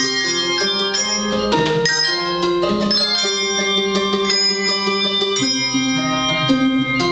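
Handbell choir playing a quick passage: many handbells struck in rapid succession, their notes ringing on and overlapping.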